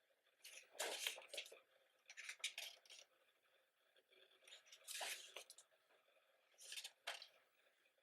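Soft paper rustles, four of them a couple of seconds apart: the glossy pages of a photobook being turned by hand.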